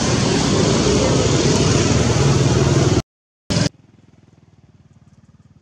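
A loud, steady engine running close, with a low rumble under a dense hiss. It cuts off abruptly about three seconds in, returns for a fraction of a second, and then gives way to faint, quiet background.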